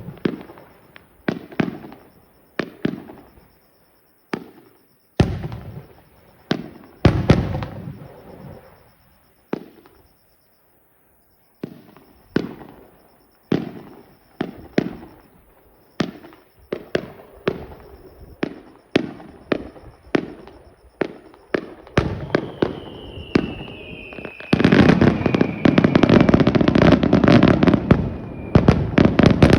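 Fireworks display: a string of separate sharp bangs, each trailing off in an echo, with a brief pause near the middle. About five seconds from the end it turns into a dense, continuous crackling barrage, with a falling whistle above it.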